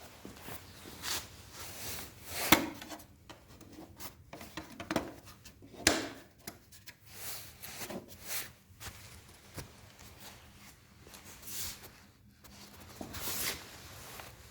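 Hand work on small model parts: irregular rubbing and scraping, with a few sharp clicks or taps, the loudest about two and a half and six seconds in.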